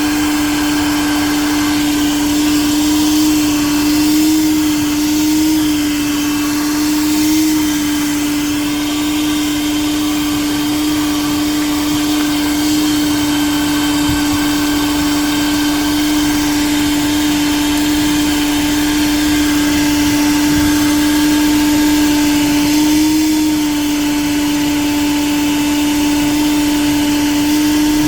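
Small 1980s Bon Aire one-gallon wet/dry car vacuum running steadily with a constant motor whine and rushing air. The pitch lifts briefly a few times, mostly in the first several seconds and once near the end.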